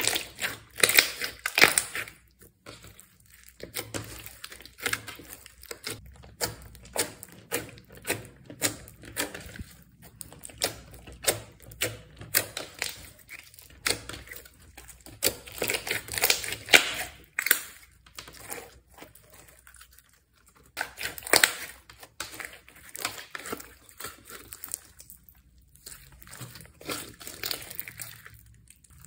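Slime being mixed and squished, giving quick, irregular sticky crackles and pops, with brief pauses about three seconds in and about twenty seconds in.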